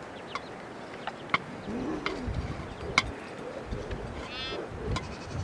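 Goats bleating a few short times, the call near the end higher-pitched, with several sharp clicks scattered through, the loudest about three seconds in.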